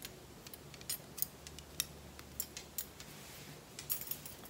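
Light metallic clicks and clinks of a metal bracelet being fitted and handled on the wrist: about a dozen short, sharp ticks at irregular intervals, with a small cluster near the end.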